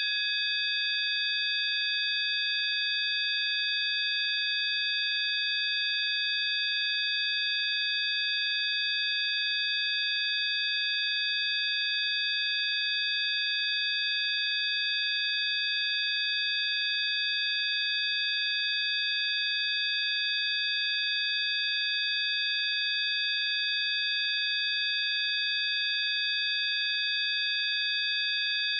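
Several high-pitched electronic sine tones sounding together, held perfectly steady and unchanging.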